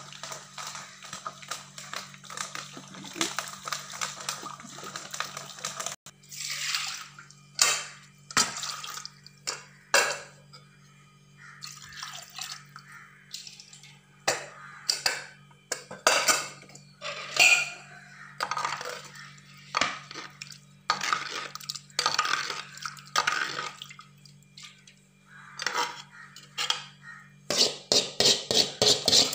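Dal gravy being stirred and mashed with a wooden spoon in a clay pot: irregular wet sloshing and scraping, with knocks against the pot, over a steady low hum. Near the end, a metal utensil scrapes cooked dal out of a steel pressure-cooker vessel into the pot in a quick run of about five strokes a second.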